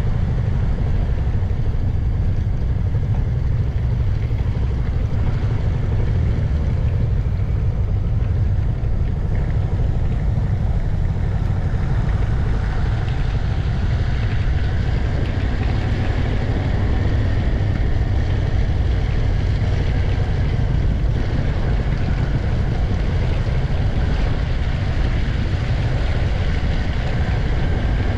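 Steady wind rush over a windscreen-mounted camera on a moving BMW C 400 X scooter, with its single-cylinder engine and belt drive running underneath. From about halfway on, a faint whine rises and falls.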